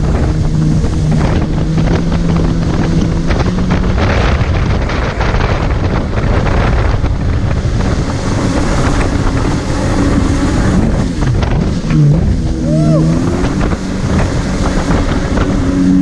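Kawasaki STX-15F jet ski engine running under way, over loud wind buffeting and rushing water. The engine note dips and climbs back about three-quarters of the way through as the throttle is eased and reopened.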